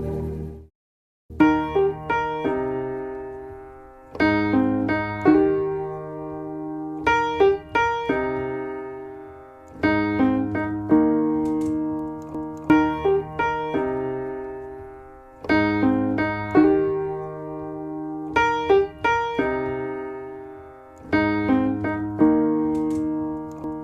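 Background piano music: after a brief silent gap about a second in, a gentle repeating phrase of struck notes, each cluster ringing and fading before the next begins every few seconds.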